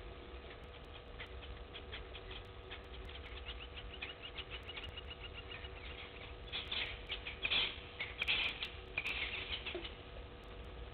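Dry grass and brush crackling and rustling as an elephant herd moves and feeds through it: a run of quick dry ticks, then louder crackling bursts about halfway through.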